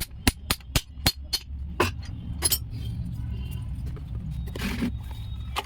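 Sharp metallic clinks, about four a second at first and then a few more spaced out, over a steady low engine hum.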